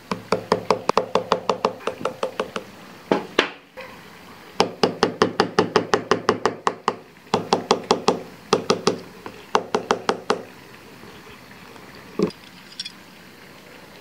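Small hammer tapping 3 mm stainless steel pins through G10 handle scales and the knife's tang. The light taps come in quick runs of about six a second, each with a short metallic ring, and there is a single knock near the end.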